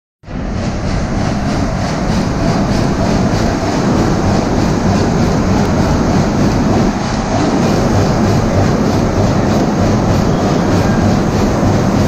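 Large stationary flywheel engine and the sawmill machinery it drives, running steadily with a loud, even mechanical din.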